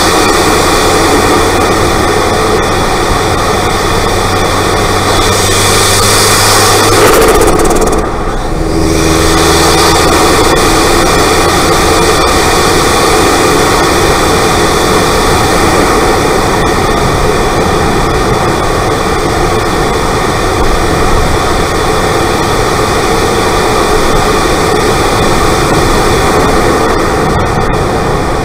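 Turbocharged Mk1 Mazda MX-5 four-cylinder engine with a TD04 turbo running, heard loud and close from inside the engine bay, with a heavy rushing hiss over the engine note. About six seconds in the sound swells louder and brighter, then drops briefly at about eight seconds before settling back to steady running.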